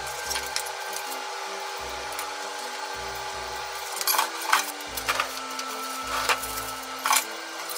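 Kitchen prep sounds: a kitchen knife cutting into a salted mackerel on a cutting board, then several sharp knocks and clatter as the knife and dishes are set down on a wooden board, the loudest about four seconds in and again near the end. Soft background music plays underneath.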